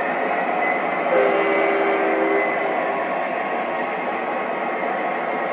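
Sound systems of four MTH Premier O gauge Norfolk Southern diesel locomotives playing a loud, steady diesel engine sound. About a second in there is a short chord horn blast, lasting just over a second.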